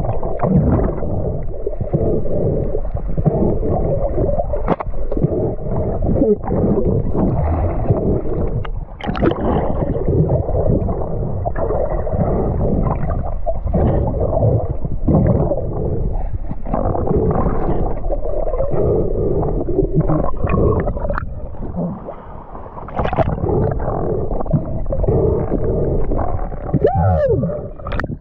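Muffled underwater water noise: gurgling and rushing water with a few sharp clicks, recorded underwater with a speared fish on the line. Near the end the sound changes as the camera breaks the surface.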